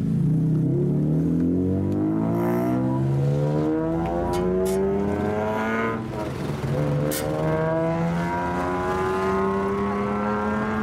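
Lowered BMW E46 M3's inline-six accelerating away, its pitch climbing steadily for several seconds. About six seconds in the climb breaks off, and a second long steady rise in engine pitch follows as a lowered custom big scooter rides past.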